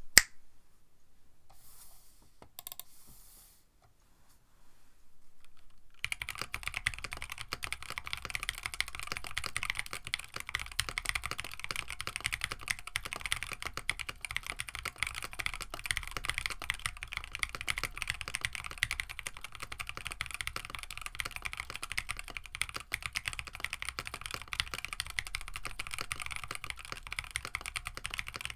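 Typing on a KBD67 Lite mechanical keyboard fitted with EV-00 switches on an FR4 plate: a single click at the start and a few faint sounds, then steady, fast typing from about six seconds in. The switches sound somewhat muted.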